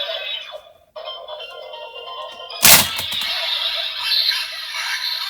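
Electronic music and sound effects from a Kamen Rider Saber DX toy belt with the Diago Speedy Wonder Ride Book inserted: a jingle that cuts out just before a second in, starts again, and a sharp hit about two and a half seconds in. Only the motorcycle book's sounds play; the Brave Dragon book in the other slot is ignored.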